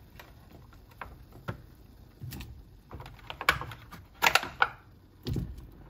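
Chunks of kalabasa squash being dropped into a stainless steel pot of broth, heard as a scattering of light clicks and knocks, with a louder cluster about three and a half to four and a half seconds in.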